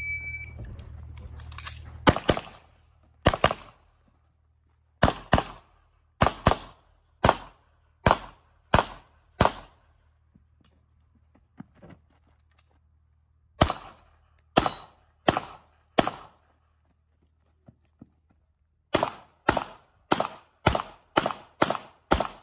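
Electronic shot-timer beep, then a 9 mm Tanfoglio Stock 2 pistol fired in quick pairs (double taps) through an IPSC course of fire. The shots come two at a time a fraction of a second apart, in runs with brief pauses, and a fast string of pairs near the end.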